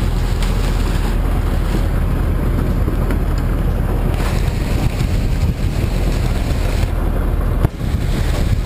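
A fishing boat's engine runs with a steady low hum under heavy wind buffeting on the microphone and rushing water. The sound drops out briefly near the end.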